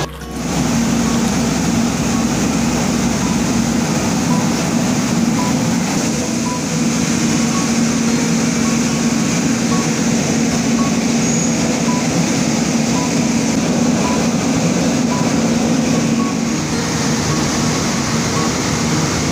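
Tea-processing machinery running steadily: conveyor belts and sorting trays carrying tea granules, giving a constant loud mechanical noise with a low hum. A faint short high tone repeats about once a second.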